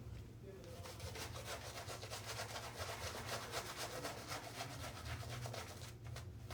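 Safety razor blade scraping through lathered beard stubble in short, quick strokes, a rapid run of crackling scrapes that pauses briefly near the end.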